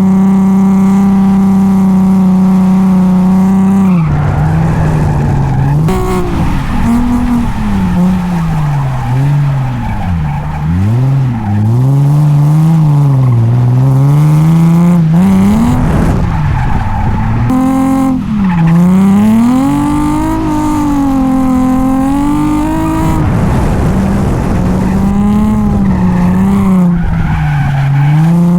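Drift car's engine held at high revs for about four seconds, then revving up and down repeatedly as the throttle is worked through a drift, with tyres skidding.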